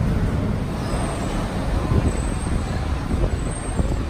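Steady low rumble of city traffic noise.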